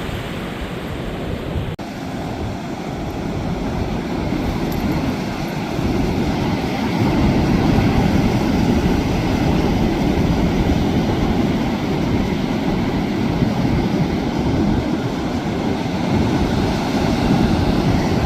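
Steady roar of surf with wind rumbling on the microphone, growing louder about six seconds in.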